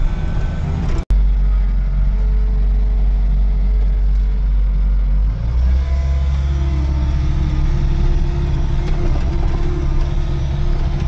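Vehicle engine and driving noise heard from inside the cab: a steady low drone that drops out briefly about a second in and steps up in pitch about five seconds in.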